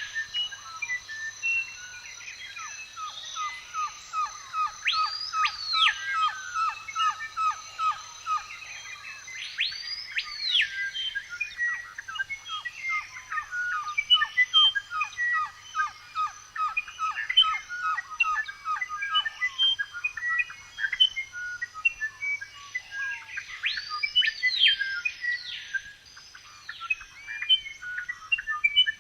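Several songbirds singing in woodland. Loud arching whistled calls, rising and falling, come every few seconds over long runs of a fast repeated trill and scattered short chirps.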